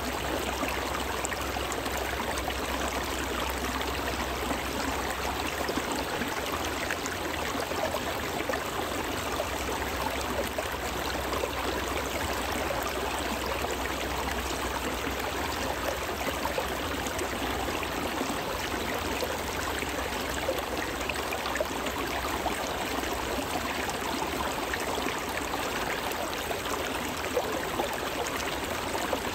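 Small shallow stream of snowmelt flowing over rocks past edges of ice, a steady even rush of running water with small trickles.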